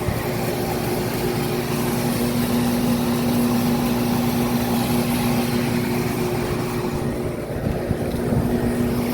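Central air conditioner condensing unit running: a steady electrical hum from the compressor over the whoosh of the condenser fan.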